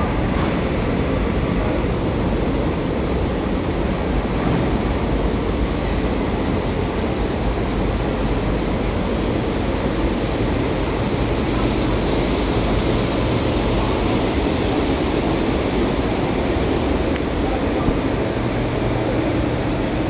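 Rubber profile extrusion and microwave vulcanization line running: a steady machine drone with a low hum.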